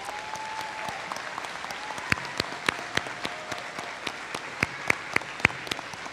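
Applause from the graduation audience, a steady patter of many people clapping, with a handful of louder, sharper claps close by standing out from about two seconds in.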